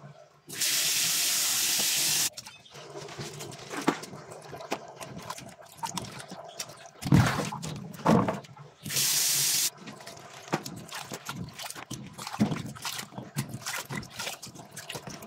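Tap water runs steadily into a plastic basin in a sink twice: for nearly two seconds about half a second in, and briefly about nine seconds in. In between, water splashes and cut potato strips clatter as they are tipped between a plastic colander and the basin during rinsing.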